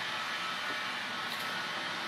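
Steady whirring hiss of a running machine, with a faint even hum in it and no changes.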